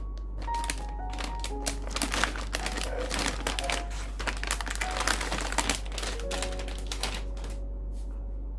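Quick, irregular clicks, taps and rustling from hands handling desktop computer parts, dense at first and thinning out near the end, over background music.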